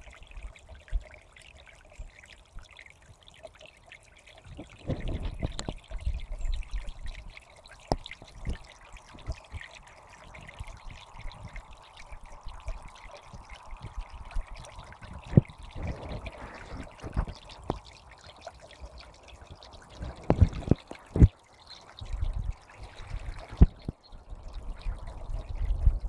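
Small woodland brook trickling and pouring over fallen leaves and twigs in shallow water. Occasional sharp clicks and bouts of low rumble run through it.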